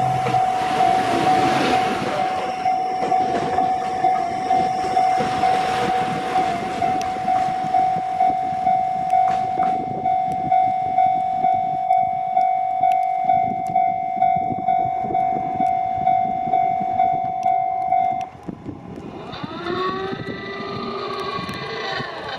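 Japanese level-crossing alarm bell ringing steadily at about one and a half strikes a second while a two-car GV-E400 diesel-electric railcar set runs past, its rumble loudest in the first few seconds. The bell cuts off near the end, and a whine then rises in pitch and holds.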